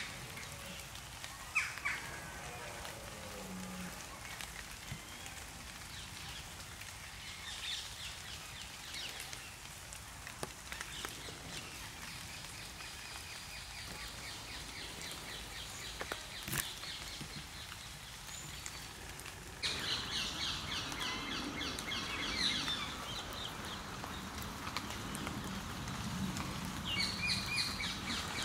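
Rain falling steadily with birds chirping. About two-thirds of the way through, the birdsong suddenly becomes denser and louder.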